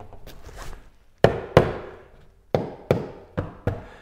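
About six sharp knocks and snaps, coming in pairs, as Kayakskin fabric on a skin-on-frame kayak is pulled taut with stretching pliers. The loudest pair comes a little over a second in.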